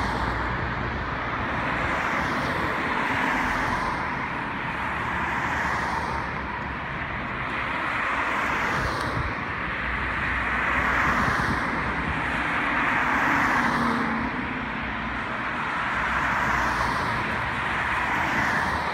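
Cars driving past one after another, their tyre and engine noise swelling and fading as each goes by.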